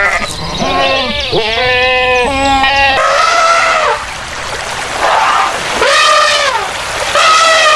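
A farm animal bleating: about six loud, wavering bleats, three in quick succession at first, then one more, and after a short gap two more near the end.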